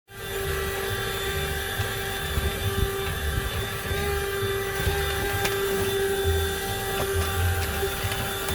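Buture handheld car vacuum running steadily, its small motor giving a constant whine over the rush of suction air.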